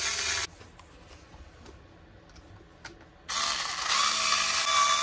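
Black & Decker cordless electric screwdriver running in two bursts: the first stops about half a second in, and the second starts about three seconds in. It is backing out a screw under an RC truck's rear bumper.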